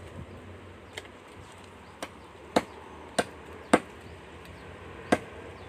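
Hatchet chopping into a tree branch: about six separate blows, several of them roughly half a second apart, the loudest near the middle.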